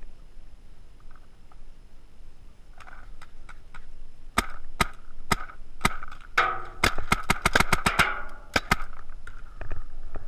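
Empire Invert Mini paintball marker firing. Single shots come about half a second apart, then a fast string of shots, then a few more single shots.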